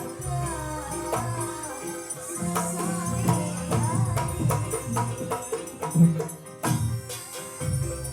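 Live Javanese jaranan music: regular drum strokes over a low held tone, with a wavering melody line in the first few seconds.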